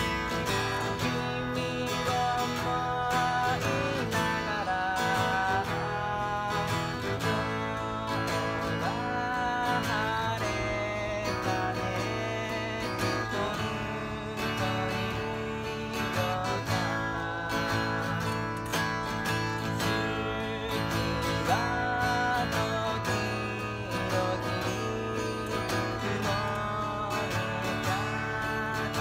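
A man singing a song while strumming an acoustic guitar, the voice carrying a bending melody over steady chords.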